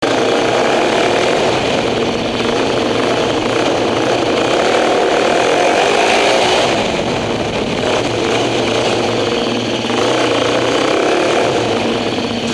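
Motorcycle engine and exhaust revving loudly inside a multi-storey car park. The pitch rises and falls over the revs, swells about six seconds in, then dips and picks up again.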